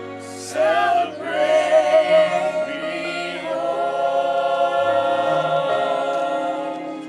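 A small group of mixed voices singing together over a soft instrumental backing, holding long, wavering notes near the end of a slow gospel song.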